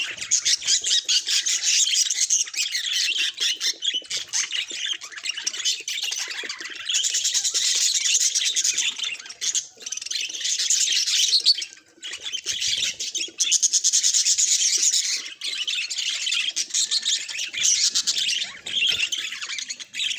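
Budgies chattering and warbling continuously in a fast, busy stream of high chirps and squawks, with a few short breaks.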